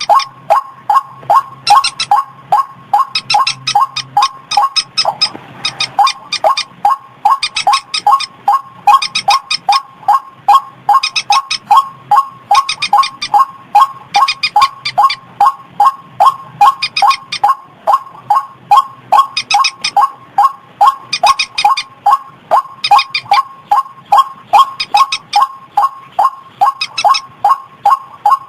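White-breasted waterhen (ruak-ruak) calls played as a bird lure: a monotonous run of short, loud notes at about three a second, with a higher, shriller phrase over them every second or two.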